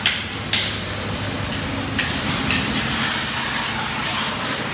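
Water from a pressure washer hissing as it sprays onto the truck, swelling and easing, with a few short clicks and a steady low hum underneath.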